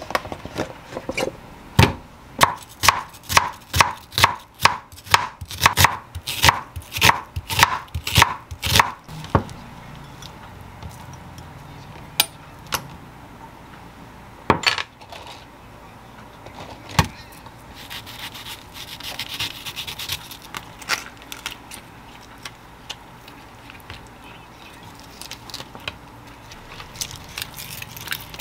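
Chef's knife slicing an onion on a wooden cutting board: a run of about twenty even knife strikes, two to three a second, for about eight seconds. Then a few single knocks, a short hiss about two-thirds of the way through, and quieter handling sounds.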